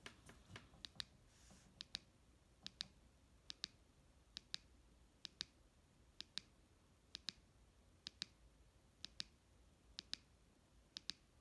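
Push-button switch of an HDS EDC flashlight pressed about once a second, each press a quick double click of press and release. Each press steps the light up one of its 24 brightness levels while a preset is being programmed.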